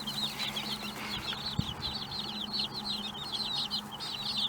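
Baby chicks peeping, a dense stream of short high chirps in quick succession.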